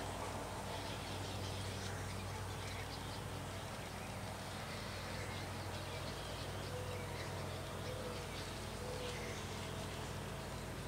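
Outdoor ambience: faint, scattered distant bird chirps over a steady low hum, with three short low calls in the second half.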